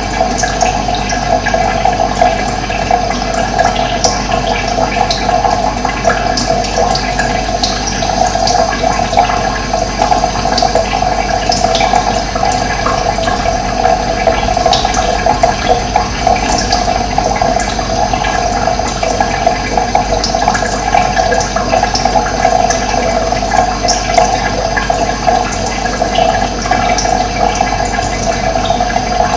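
Running water gushing steadily, with small birds chirping briefly now and then above it.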